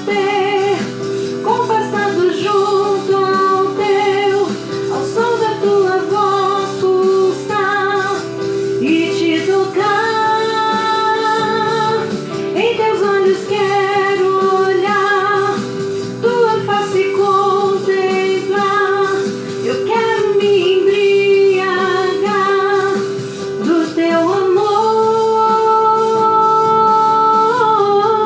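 Music: a woman singing a worship song with instrumental accompaniment, her voice holding long notes.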